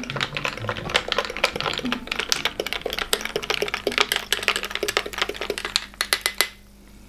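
Metal spoon, then a fork, stirring ice cubes in a glass of mojito: rapid clinks and scrapes of metal against ice and glass, stopping about six and a half seconds in.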